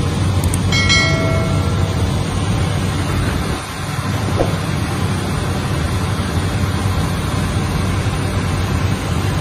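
Steady drone of an aircraft's engine and propeller heard inside the cockpit. A short bell-like chime sounds about a second in.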